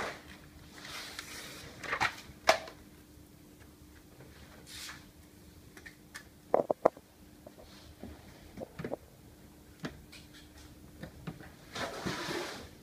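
Scattered handling noises from gloved hands working sound-deadening material onto a car door's bare inner panel. There are short rustles about a second in and again near the end, and a few sharp clicks and knocks, the loudest a quick cluster just past the middle.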